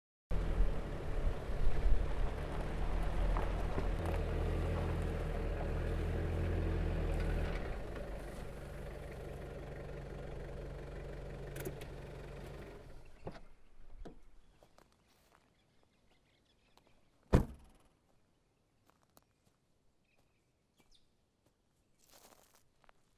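Pickup truck engine running steadily, loud at first, easing down after about seven seconds and dying away about fourteen seconds in. A single sharp knock follows a few seconds later, then only faint scattered small sounds.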